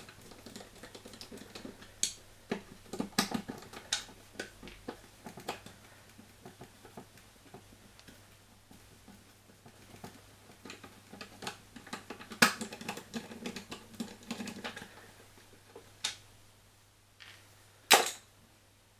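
Irregular clicks and knocks of plastic and metal parts being handled while a washing machine door is taken apart. They come in clusters, with a single sharp knock, the loudest, about a second before the end.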